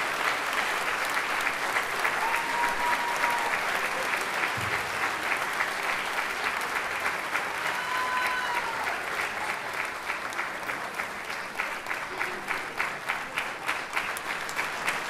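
Theatre audience applauding, the clapping falling into rhythmic clapping in unison in the second half, about two to three claps a second.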